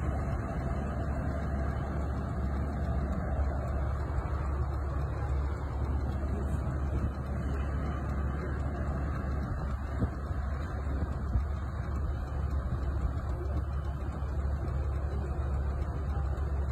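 Steady low rumble of idling vehicle engines, unchanging throughout.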